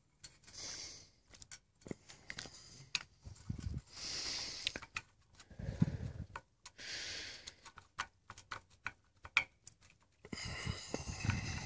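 Faint, scattered small metal clicks and knocks as the body sections of a Detroit Series 60 DDEC V Bosch electronic unit injector are worked together over their locating dowel pins, with several hissing breaths in between.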